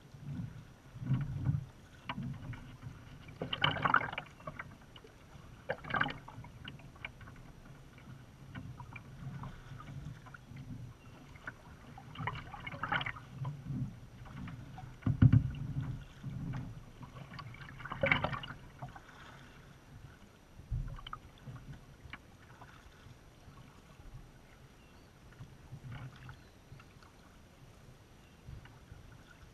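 Kayak paddle strokes in calm water: the blade dipping, pulling and dripping every two to three seconds, with a dull low thump about halfway through. The strokes grow fainter near the end.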